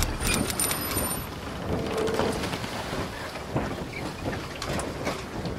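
Intro sound effect: a rain-like crackling hiss scattered with small clicks, with a few thin high tones in the first second.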